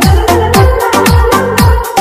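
Background music: an electronic dance track with a steady beat of deep bass drum hits that drop in pitch, crisp high percussion between them and held synth notes.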